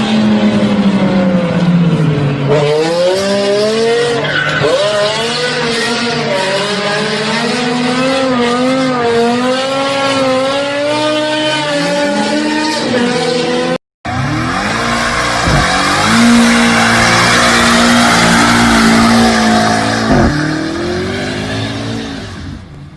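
BMW M car engine revving up and down hard while the tyres skid and squeal. About 14 seconds in, a cut to another car: loud tyre squeal over an engine held at steady high revs, then the engine falls away and fades near the end.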